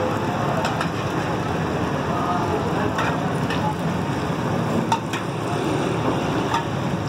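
Lacha parathas shallow-frying in a large round pan of oil, a steady sizzle as oil is ladled over them, with a few sharp clicks scattered through.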